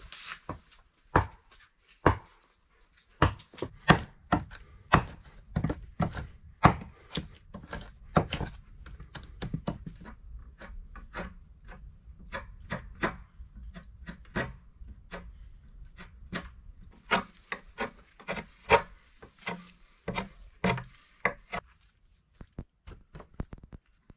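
Hand hoe chopping into and scraping earth, heaping soil against the base of a log wall: a long run of sharp strikes, one or two a second, with dragging scrapes of soil between them, stopping shortly before the end.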